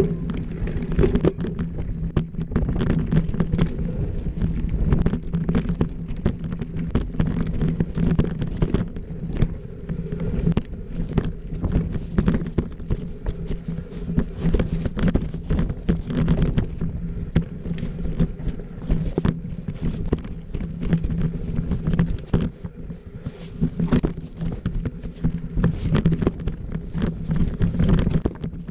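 Mountain bike ridden fast down rough, rocky singletrack: continuous irregular rattling and knocking of the bike and tyres over rocks and roots.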